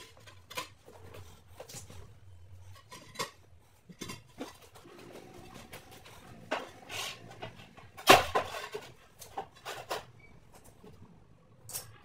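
Large porcelain floor tiles being handled: scattered light knocks and scrapes of tile against tile and floor, and one loud sharp clack with a brief ring about eight seconds in, as a tile is set down on a manual rail tile cutter.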